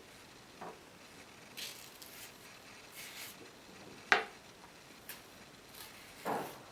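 Faint kitchen handling sounds as peeled bananas are put into a bowl: soft rustling and rubbing, a sharp click about four seconds in and a duller knock near the end.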